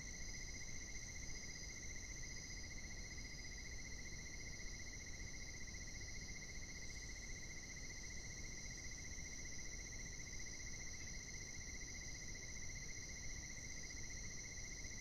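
Steady night chorus of insects: a fast, even trill on one pitch under several higher continuous shrilling tones, over a low steady hiss.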